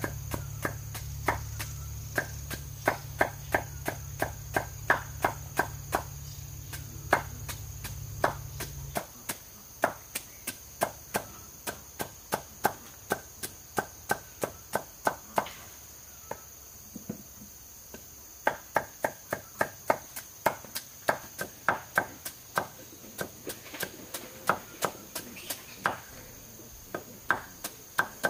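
Rapid, repeated strikes of a hand tool, about three a second, with a brief pause about two-thirds of the way through. Under them insects drone steadily at a high pitch, and a low hum stops abruptly about a third of the way in.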